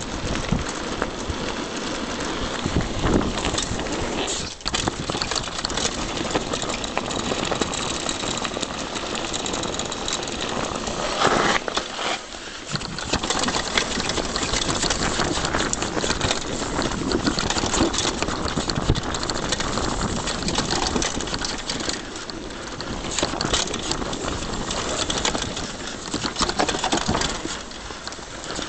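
Mountain bike ridden fast downhill on a rough dirt trail: tyres rumbling over dirt and gravel, and the bike clattering and rattling over bumps, heard through wind noise on a chest-mounted camera's microphone. It eases briefly near the middle, then the rattle picks up again.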